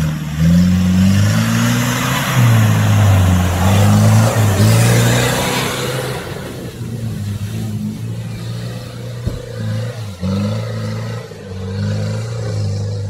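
Off-road 4x4's engine revving up and down as it drives through a muddy stream and river ford, with water and mud spraying from the wheels for the first half. The engine keeps working at changing revs after the splashing dies down.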